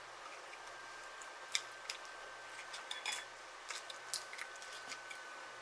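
Quiet chewing with soft, wet mouth clicks as a person eats, a few short separate clicks scattered through.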